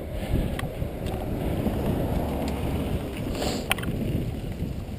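Tufftrail Gravity dog scooter's wheels rumbling steadily over a rough dirt trail at speed, with wind on the microphone and a few light clicks and rattles.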